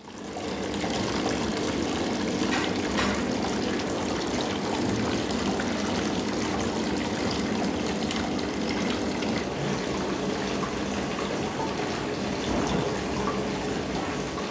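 Water trickling and splashing steadily down a small tabletop rock fountain's cascade, with a faint low hum underneath.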